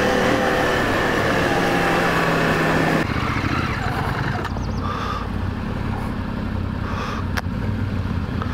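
Adventure motorcycle engine running while riding, heard through wind noise on a helmet camera. About three seconds in, the sound changes abruptly to a quieter, lower engine note with less wind.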